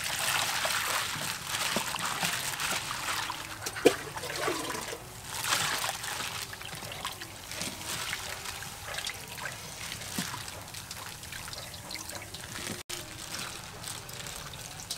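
Water poured into a stainless steel bowl of raw shrimp and sloshed about by hand as they are rinsed, trickling and splashing, with a sharp knock about four seconds in.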